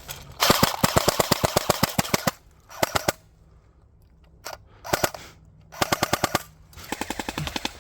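Airsoft guns firing on full auto at about ten shots a second: one long burst of about two seconds, then several short bursts.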